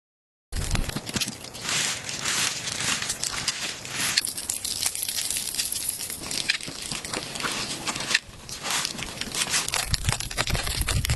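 A dense crinkling, crackling noise made of many quick crackles, starting suddenly after about half a second of dead silence, with a brief dip a little after eight seconds in.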